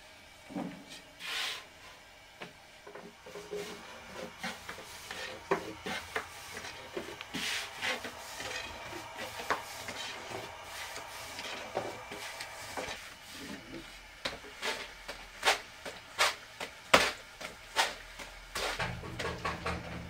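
Objects being handled: irregular knocks, clacks and rubbing or scraping sounds throughout, with some louder sharp knocks in the second half.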